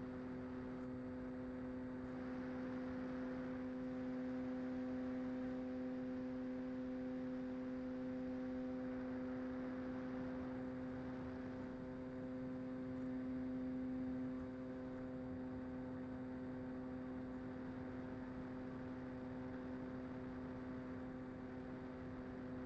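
Brushless electric motor and pusher propeller of a Mini Talon RC plane droning at a steady pitch in cruise, over a faint hiss of airflow. The drone swells briefly about two-thirds of the way through.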